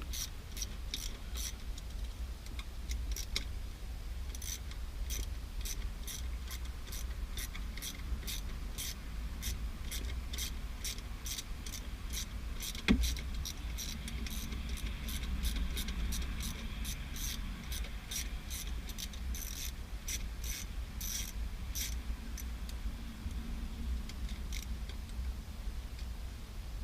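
Hand ratchet clicking in irregular runs as the stock shifter's 10 mm nuts are worked loose, with one sharper metallic knock about halfway through. A low steady hum underneath.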